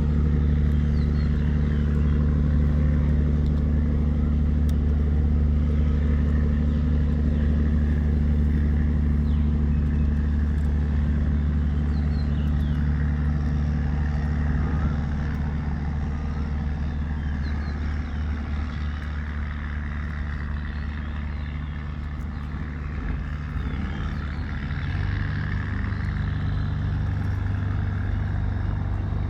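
Wooden tugboat's engine running steadily under way, a deep low drone. It drops a little in level about halfway through, and its tone shifts near the end.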